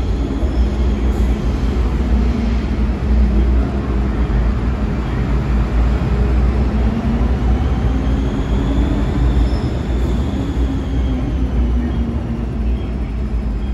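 MTR M-train electric multiple unit passing through a station without stopping: a steady heavy rumble of wheels and running gear, with a high whine that rises and then falls in pitch in the middle.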